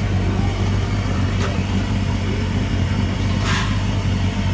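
A steady low machine hum, like a running engine or motor, with a brief hiss about three and a half seconds in.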